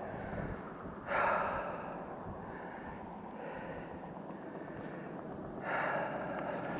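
A person breathing audibly near the microphone: two short, noisy breaths, about a second in and again near the end, over a faint steady background.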